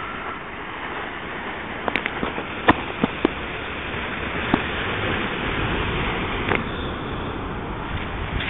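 Sea surf washing onto a rocky shore, a steady rushing noise, with several sharp knocks between about two and seven seconds in.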